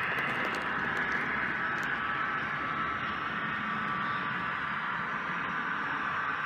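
Märklin H0 model goods train running on three-rail track: a steady whirring noise of its wheels and motor.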